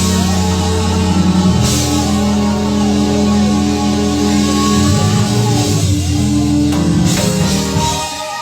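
Church band playing a praise break: drum kit with cymbal crashes, bass and guitar over held chords.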